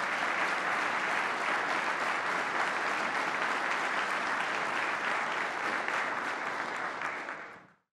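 Audience applauding steadily, fading out sharply near the end.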